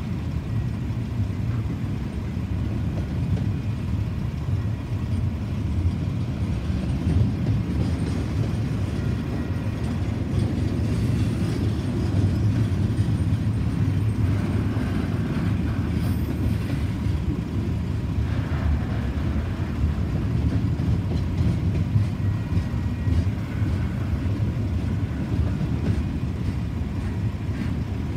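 Double-stack container well cars of an intermodal freight train rolling past, giving a steady low rumble of steel wheels on rail.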